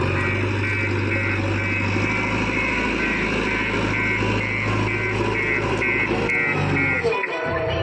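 Diesel engine of a JCB 3DX backhoe loader running steadily, with a high electronic beep repeating about twice a second that stops near the end.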